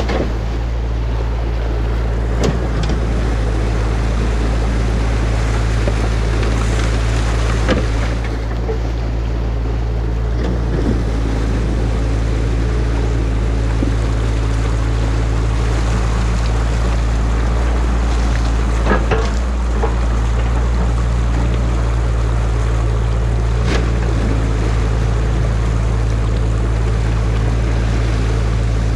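Excavator's diesel engine running steadily, with a few sharp knocks over it.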